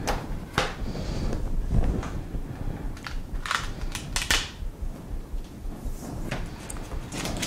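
Plastic clicks and taps from handling a clear acrylic stamping platform and its hinged lid as a stamp is pressed and lifted, with a few brief paper rustles.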